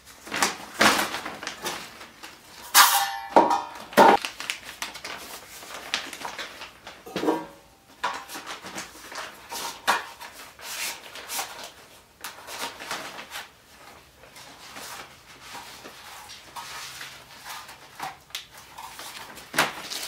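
Plastic bags and packaging rustling and crinkling as they are handled and unpacked, in uneven bursts, the sharpest about three and four seconds in, with a brief higher-pitched sound near three seconds.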